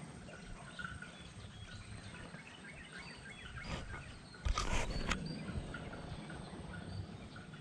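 Faint outdoor ambience with a few scattered high bird chirps, and a short burst of noise about four and a half seconds in.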